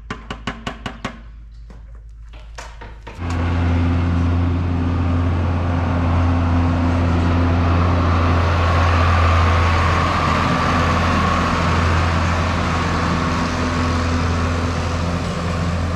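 A few quick clicks in the first second, then about three seconds in a John Deere farm tractor's diesel engine cuts in loud and runs steadily with a deep, even drone.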